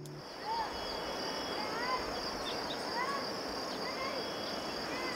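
Outdoor countryside ambience: insects trill in a steady high buzz throughout, while birds give short whistled calls that bend up and down, repeating every second or so. The tail of some music cuts off right at the start.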